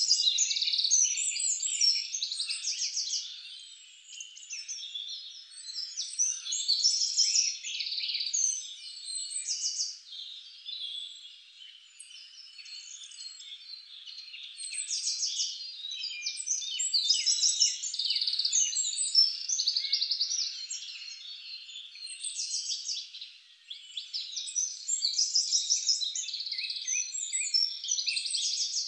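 Dense chorus of birds and frogs chirping, whistling and trilling, all high-pitched with nothing low underneath. It swells and fades every few seconds.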